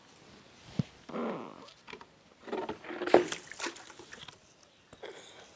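Cows moving in a cattle shed, with a sharp knock about a second in and a cluster of short animal noises and rustling around three seconds in.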